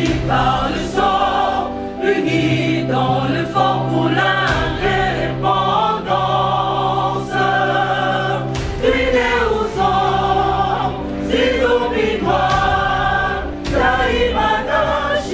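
Opening theme music with choir singing over a held low bass note, punctuated by sharp percussion hits.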